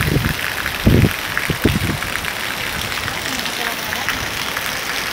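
Heavy rain pouring onto the street and pavement, a steady dense hiss, with a few short low thumps in the first two seconds.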